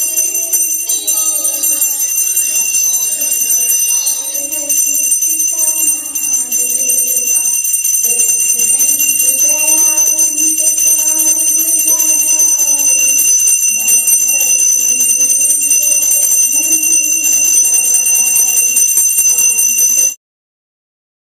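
Devotional aarti music: a bell rings continuously over a flowing melody line. It cuts off abruptly about a second before the end.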